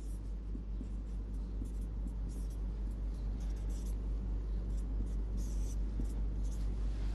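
Marker pen writing on a whiteboard: a series of short, separate strokes, over a steady low hum.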